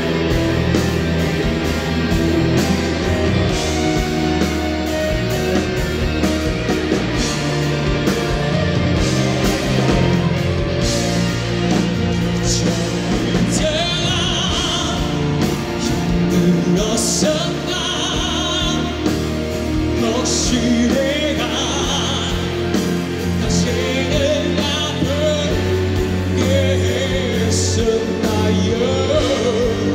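Loud live rock band music with a vocalist singing over it, held notes wavering with vibrato.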